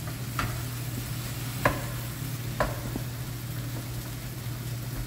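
Food sizzling in a frying pan on a stove, with a few sharp clinks of a utensil against the pan over a steady low hum.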